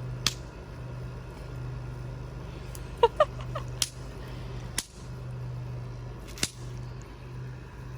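Snap-pop poppers (bang snaps) thrown onto the ground, cracking with about half a dozen sharp snaps spread over several seconds, three of them close together a few seconds in. A steady low hum runs underneath.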